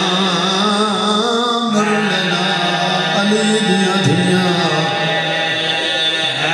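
A man's voice chanting through a microphone in long, drawn-out held notes that slide in pitch: a zakir's sung majlis recitation.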